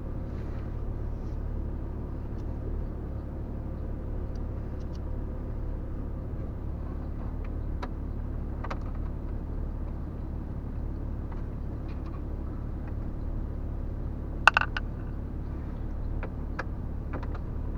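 Jeep Cherokee XJ engine idling steadily, heard as a low hum from inside the cab, with scattered light clicks from work on the plastic dash trim and one sharper clack about 14 seconds in.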